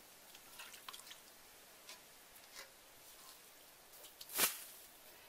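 Light clicks and taps of bowls and vegetables being handled and set down, then one much louder short, sharp sound about four and a half seconds in.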